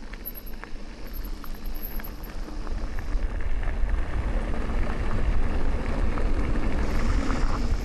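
Mountain bike rolling fast down a dirt trail: tyres rumbling over the ground, wind on the microphone and scattered rattles and clicks from the bike. The noise builds from about two and a half seconds in as speed picks up.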